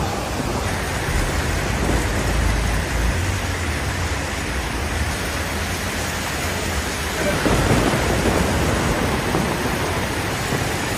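Heavy storm rain pouring in a steady, loud hiss, with a deep rumble of thunder under it.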